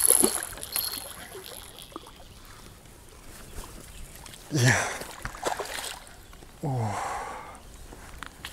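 A hooked silver carp splashing at the water's surface as it is played close to the bank, loudest right at the start. Twice a man's short exclamation falls in pitch, near the middle and again about seven seconds in.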